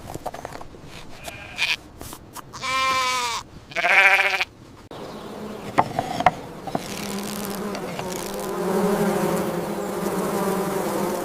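Two short, wavering bleats from livestock, about three and four seconds in. After them comes a steady insect buzzing, like bees or flies.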